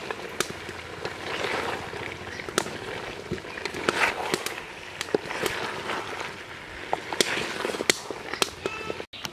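Wooden spatula scraping and knocking against an aluminium cooking pot while chicken and ash gourd pieces are stirred, in uneven strokes, with sharp crackles and pops scattered throughout.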